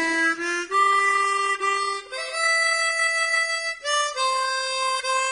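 Opening music: a solo reedy wind instrument playing a slow tune of long held notes, stepping up in pitch over the first few seconds and then settling on a sustained note.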